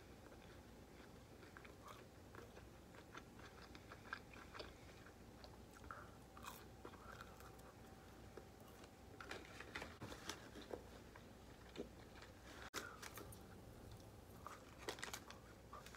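Faint, close-up chewing of McDonald's chicken nuggets: soft wet mouth clicks scattered throughout, with a short run of them about nine to ten seconds in.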